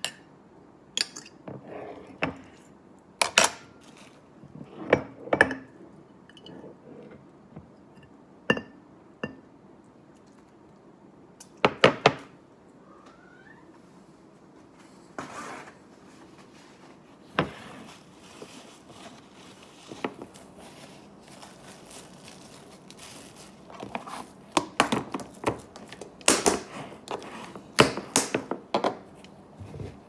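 Irregular clinks and knocks of a metal fork against glass and of glassware set down on a countertop, as orange slices are forked from a glass dish into a glass bottle.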